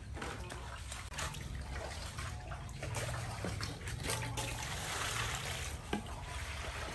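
Water poured from a plastic dipper into a metal basin, trickling and splashing, with a few light knocks.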